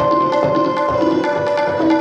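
Several tablas playing quick strokes together, over a sarangi holding a bowed melodic line whose notes step between long held pitches.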